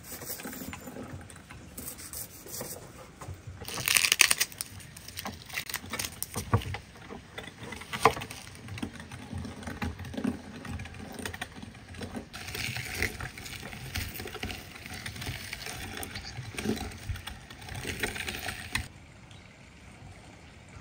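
Hand food preparation: a knife cutting an onion against a wooden board and a hand-cranked metal meat grinder being turned, heard as irregular knocks and clicks with stretches of scraping noise. It goes quieter near the end.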